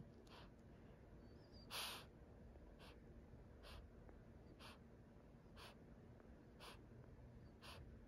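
Small black-and-tan dog's heavy breathing: short, faint, hissing breaths about one a second, one louder breath about two seconds in, during an episode in which she is dazed and unresponsive; the owner wonders whether it is a heart problem.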